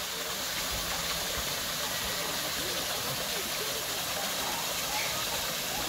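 Small rock garden waterfall splashing into a pond, a steady rushing hiss.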